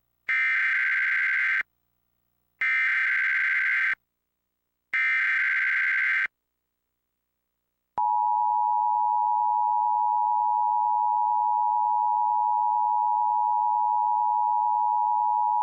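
Emergency Alert System SAME header: three bursts of screechy digital data tones, each a little over a second long with about a second between them. About eight seconds in, the steady two-tone EAS attention signal starts and holds. Together they open a Required Monthly Test alert relayed over Spectrum cable.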